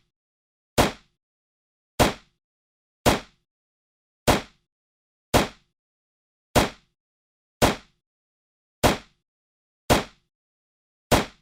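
9mm pistol gunshots fired singly at a steady pace, about one a second, ten shots in all. Each is a sharp crack with a short tail, with nothing heard between shots.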